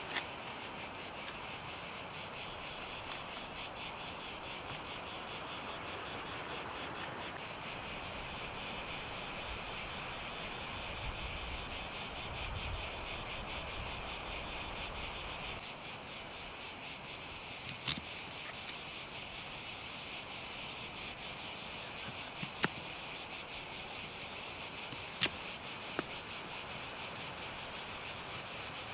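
Cicadas chirring in a steady, high-pitched chorus that grows louder about eight seconds in, with a few faint clicks now and then.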